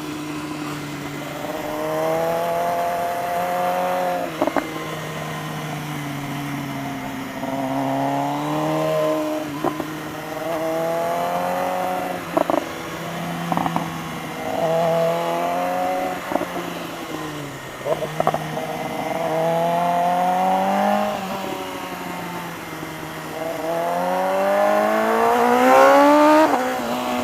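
BMW S1000RR's inline-four engine revving up and dropping back again and again through the gears while ridden hard through corners, with short sharp breaks at the shifts every few seconds. The pitch climbs highest near the end.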